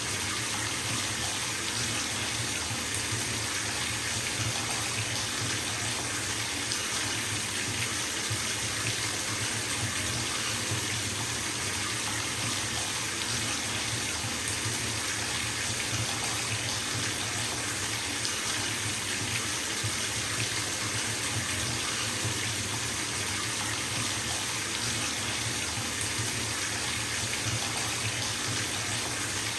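Bathtub tap running, water pouring steadily into the filling tub: an even, constant rush with a low rumble underneath.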